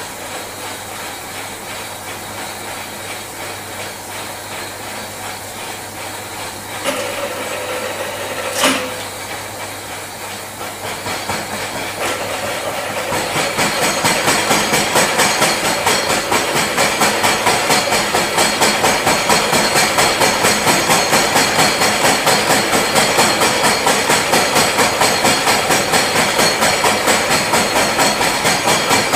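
Milling machine running, with two sharp knocks about seven and nine seconds in. From about thirteen seconds the face mill is cutting the metal workpiece, and the sound grows louder with an even, rhythmic pulse from the interrupted cut.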